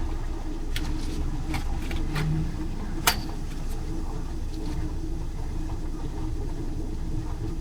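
Steady low rumble of a car idling, heard from inside the cabin, with light clicks of small objects being handled and one sharp click about three seconds in.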